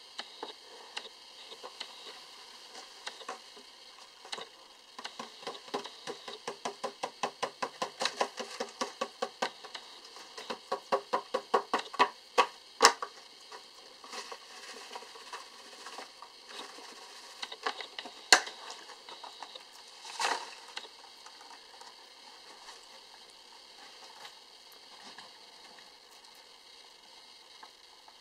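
Clear plastic tub of feeder crickets being handled and tapped to shake the crickets out: a run of rapid plastic clicks, about four a second, for several seconds, then a few single sharper knocks.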